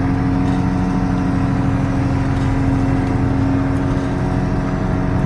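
Fishing boat's engine running at a steady speed, an even, unchanging hum.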